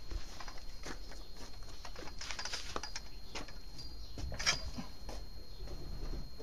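Small clicks and scrapes of a thin metal rod being worked through a skinned lamb's leg and against a steel roasting spit, the sharpest click about four and a half seconds in. Birds chirp in the background.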